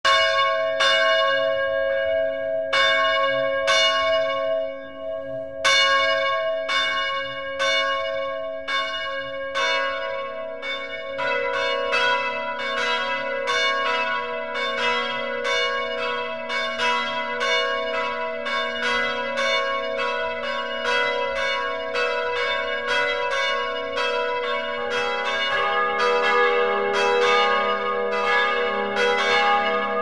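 Church bells ringing in single strokes about a second apart, with a short gap near five seconds. From about ten seconds in the strokes come faster and overlap, each ringing on into the next.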